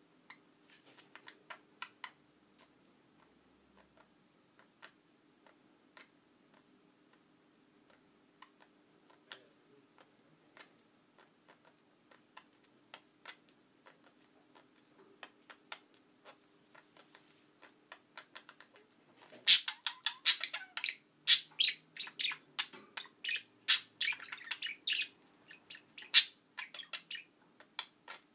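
Pet budgerigars chirping and clicking: sparse, faint short ticks at first, then a loud, quick flurry of sharp chirps and clicks in the last third.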